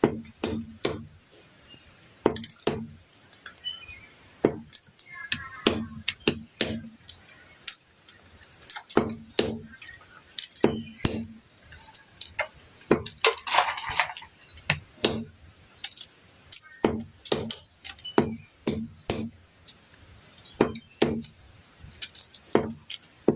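Chinese olives being chopped with a blade: a run of sharp, irregular chops, about one or two a second. Small birds chirp now and then in the background.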